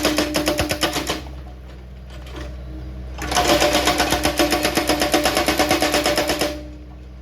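Excavator-mounted hydraulic rock breaker hammering on stone in rapid, even blows, six to eight a second, in two bursts: one stopping about a second in, and a longer one of about three seconds starting a third of the way through. The excavator's diesel engine runs on between the bursts.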